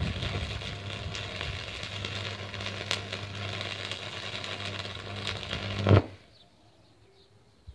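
Electric arc welding with a homemade saltwater-resistor welder: the arc crackles and sputters steadily over a low hum, and the weld runs well. The arc flares up loudest and then breaks off sharply about six seconds in.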